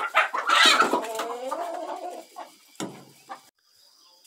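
Domestic chickens clucking, with one hen giving a drawn-out, wavering call about a second in.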